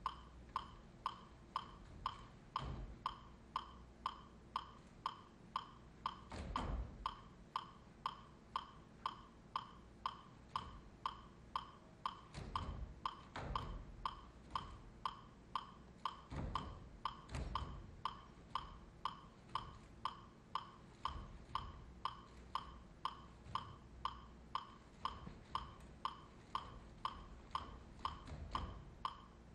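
A steady metronome-like click, about two a second, each a short pitched tick like a wood block. A few dull low thumps sound underneath now and then.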